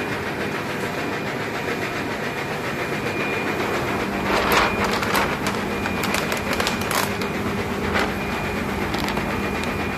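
DTF printing machinery, the powder shaker and curing dryer, running with a steady hum and whir. Short crackles of the printed PET transfer film being handled come in clusters from about four to seven seconds in and again around eight seconds.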